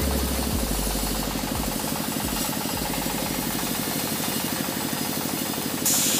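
Engine driving a sawmill, running steadily with a fast, even firing rhythm.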